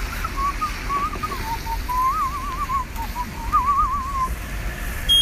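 A person whistling a wavering tune with quick trills, stopping about four seconds in, over a low steady rumble.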